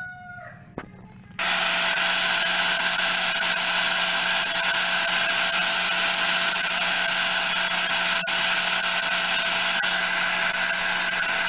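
Angle grinder with a sanding disc running steadily, abrading rust off a metal door plate pressed against it; it comes in abruptly about a second and a half in and briefly dips about eight seconds in.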